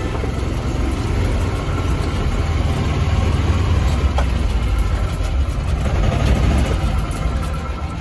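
Yamaha golf cart engine running as the cart drives along, a steady low rumble that grows a little louder through the middle and eases off near the end.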